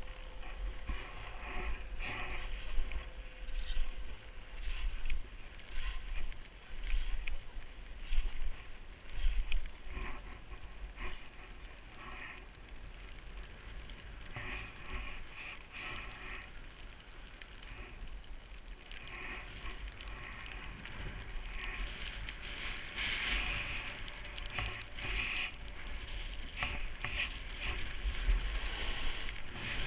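Skis hissing and scraping over fresh snow on a groomed run, swelling and fading with the turns, with wind rumbling on the camera's microphone.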